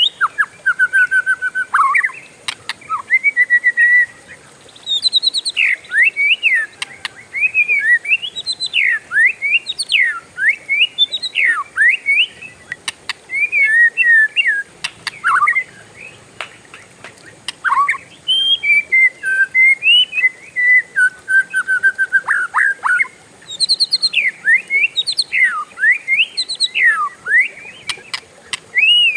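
Oriental magpie-robin (kacer) singing a long, varied song of clear whistles and quick rising and falling phrases, nearly without a break.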